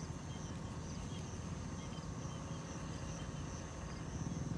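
Outdoor ambience: insects trilling steadily at a high pitch over a low, steady rumble, with faint small chirps.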